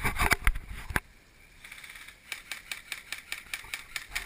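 Airsoft gunfire: a loud cluster of shots and knocks in the first second, then a rapid run of sharp cracks, about six a second, from about two seconds in.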